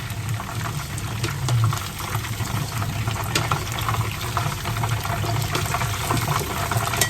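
Flour-coated chicken pieces deep-frying in hot oil: a steady sizzle with many small crackles.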